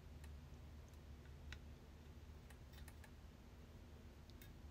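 Near silence with a few faint, scattered clicks from handling a cordless drill and fitting a bit into its chuck; the drill's motor is not running.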